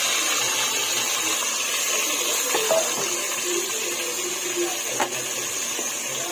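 Marinated chicken sizzling steadily in hot oil in a pan, freshly added, with a couple of light knocks partway through.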